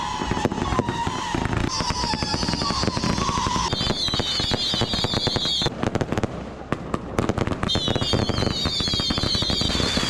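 Fireworks fired from the road in rapid volleys of crackling pops and bangs. Shrill, wavering whistles ride over the crackle for the first few seconds, stop briefly near the middle, and return near the end.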